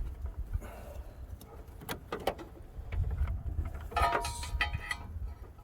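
Hands working with wiring and parts under a Jeep's cowl: scattered clicks and rustling over a low rumble, with a brief squeak about four seconds in.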